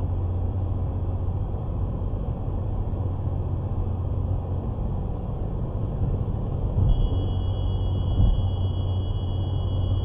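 Steady low rumble of road and engine noise inside a car cruising at about 100 km/h. About seven seconds in, a steady high-pitched tone starts and holds: the Stinger VIP radar detector alerting to a MultaRadar CT speed camera ahead. A couple of low thumps come soon after the tone starts.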